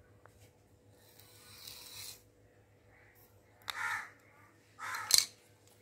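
A crow cawing twice near the middle, short harsh calls, with a sharp click during the second. Shortly before, a soft rustle of a wooden comb drawn through long hair.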